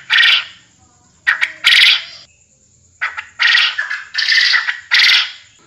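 Puyuh kebon quail calling: a series of loud, harsh, rattling call bursts, about five in a row, each less than a second long, with short pauses between. This is the quail's call as used for luring (pikat) the birds.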